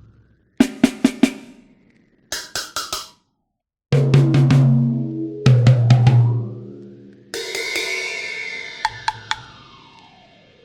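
Sampled funk drum kit from the EZdrummer 3 Funkmaster EZX library playing short fills: quick groups of snare and drum hits with short gaps between them, then low-ringing tom hits. About seven seconds in, a cymbal crash rings out and slowly dies away.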